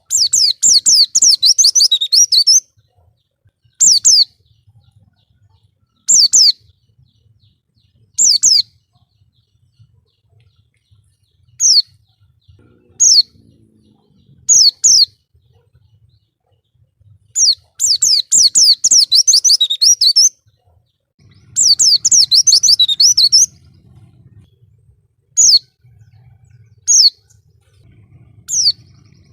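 White-eye (pleci) singing. Long runs of rapid, high twittering notes, a few seconds each, alternate with short chirped phrases every second or two.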